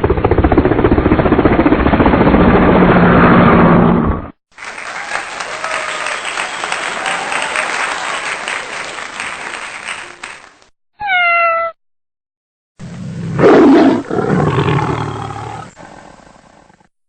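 A string of separate sound-effect clips cut one after another with short silent gaps: a loud noisy stretch that stops about four seconds in, a longer steadier noisy stretch, a brief pitched call that falls in pitch near the middle, and a last stretch with a strong rising and falling cry that fades out.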